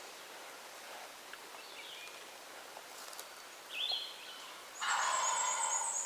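Wild turkey gobbling, a loud rattling call that starts near the end, with a songbird's high, rapid trill over it. Before that there are only two faint short calls.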